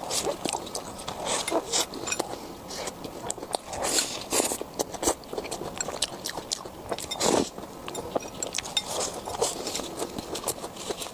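Crispy fried food bitten and chewed close to the microphone: dense, irregular crunching and crackling as the crust breaks.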